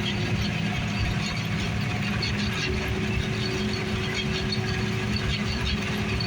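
John Deere combine running steadily while threshing barley: an even machine drone with a constant light rattle over it.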